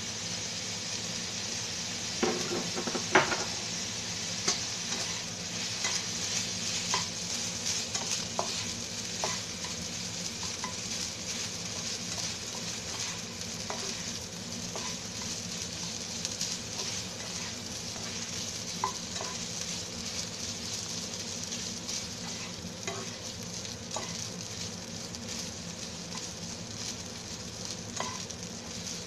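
Fried rice and broccoli sizzling in a hot frying pan while a spatula stirs and scrapes through it, with scattered clicks and knocks of the spatula against the pan. A few louder knocks come about two to three seconds in.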